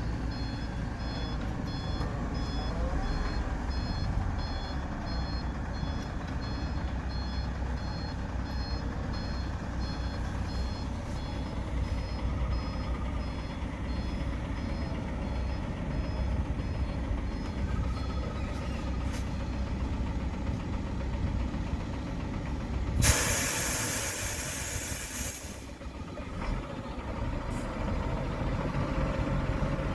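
Heavy dump truck engine running steadily, its reversing alarm beeping repeatedly until about two-thirds of the way through. Near the end, a loud hiss of air from the truck's air brakes lasts about two and a half seconds.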